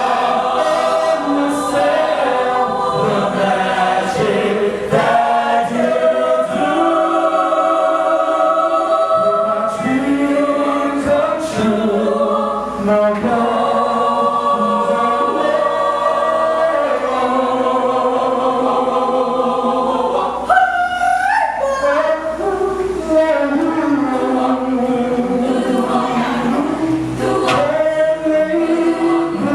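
Choir singing, several voice parts holding notes together in harmony and moving from chord to chord.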